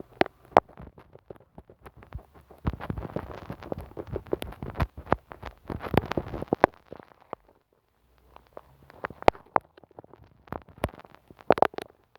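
Glue stick rubbed and dabbed directly on a microphone: a few seconds of dense, sticky crackling and clicking, then scattered tacky clicks with a short burst of them near the end.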